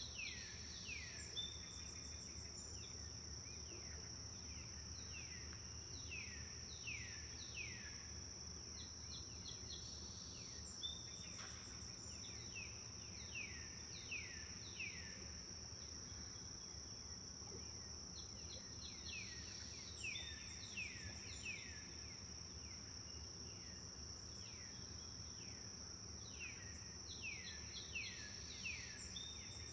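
A songbird repeating phrases of quick, falling whistled notes every few seconds, over a steady high-pitched insect trill.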